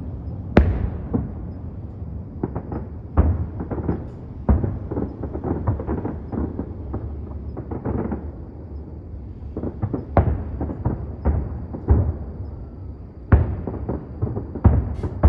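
Fireworks show: shells bursting in a long irregular run of booms and sharp bangs, some close together in clusters, each trailing off in a low rumble.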